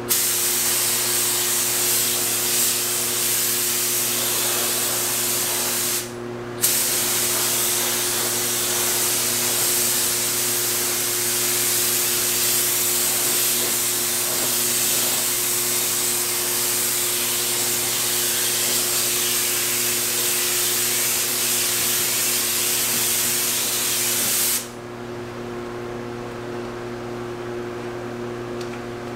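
Compressed-air paint spray gun hissing steadily as paint is sprayed, with a short break about six seconds in, and the spray stopping a few seconds before the end. A steady low hum runs underneath throughout.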